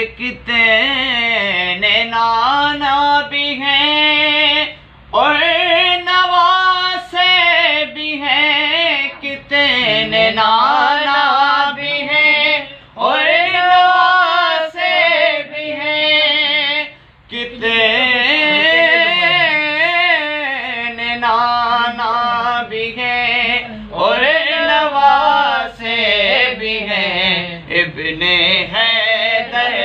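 A man's voice singing a naat (Urdu devotional poem) solo and unaccompanied. It moves in long ornamented phrases of wavering held notes, broken by short pauses for breath.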